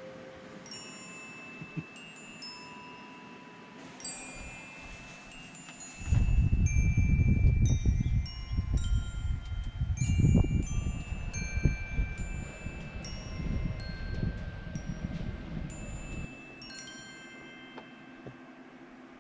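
Wind chimes tinkling: scattered high, ringing notes that die away. From about six seconds in until about sixteen seconds, a louder low rumble lies under them.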